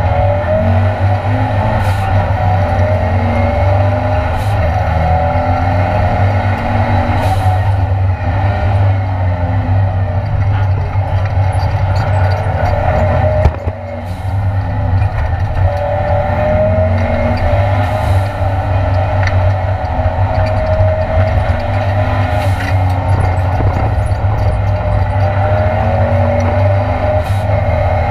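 Ford Escort Mk2 Cosworth race car's engine heard from inside the cabin at racing speed, its revs rising and falling as it accelerates and shifts, with a brief drop in level about halfway through.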